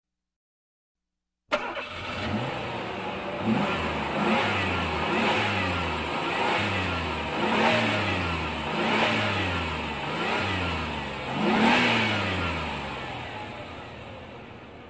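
Car engine starting abruptly and then revved over and over, the pitch climbing and dropping back about every second and a half, before dying away near the end.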